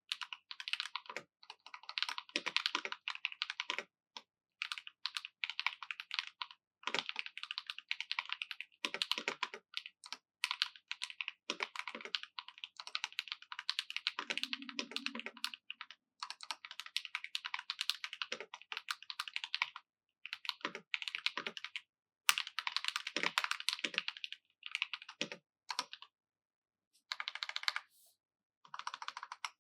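Typing on a 65% mechanical keyboard with factory pre-lubed Akko CS Lavender Purple tactile switches, a brass plate and PBT keycaps: dense runs of key clicks broken by short pauses.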